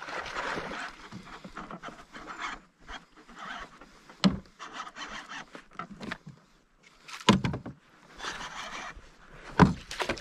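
Handling noise in a plastic kayak while a fish is played and landed: rustling and scraping with three sharp knocks against the hull, the last near the end as the landing net goes into the water with a splash.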